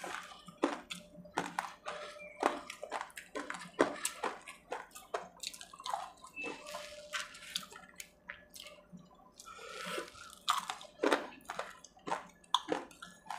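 Close-up chewing of fried potato and onion pakoras: irregular short crunches and mouth smacks, several a second, with little pauses between bites.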